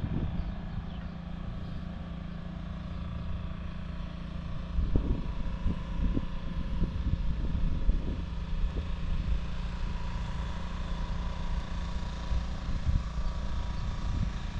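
Steady low engine and road drone of a moving vehicle, with a few heavier low rumbles and knocks partway through.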